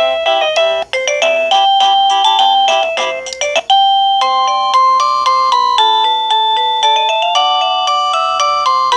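Liztek plug-in wireless doorbell receiver playing electronic chime ringtones, a quick run of stepped notes. About three and a half seconds in the tune cuts off and a different chime melody with longer held notes starts, as the ringtones are stepped through.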